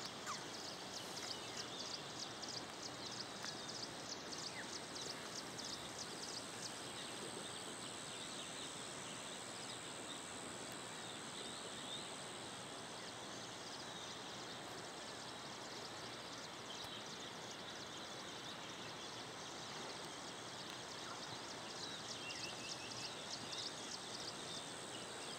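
Faint steady rush of a river in a wooded valley, with a rapid, high-pitched chirping trill for the first several seconds that returns near the end.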